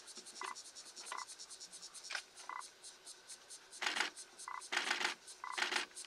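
Steady fast insect chirring, high-pitched and pulsing several times a second, with short chirps roughly once a second. From about four seconds in come three loud scratchy rustling bursts.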